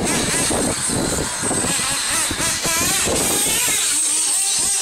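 Radio-controlled off-road buggies running on a dirt track, their small motors buzzing at a high pitch that quickly rises and falls as the throttle is opened and eased through the corners.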